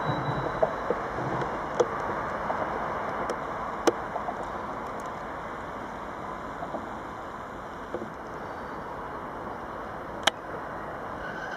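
Steady rail-yard background noise with a few sharp knocks standing out, the loudest about four and ten seconds in.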